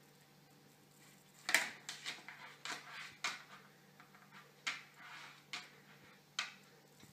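Paper and a stiff greeting card rustling and tapping on a wooden table as a cat paws at them and steps on them: a run of short, soft crinkles and taps, starting about one and a half seconds in and coming every half second or so.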